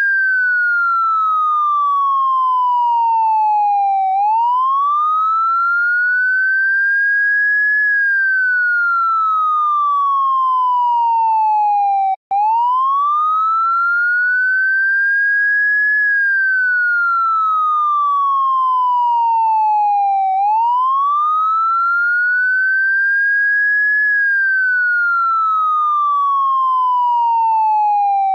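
Vietnamese police car siren in a slow wail: a clean tone sweeps up, quickly at first and then easing, over about four seconds, then slides steadily down over about four seconds, repeating throughout. There is a momentary dropout about twelve seconds in.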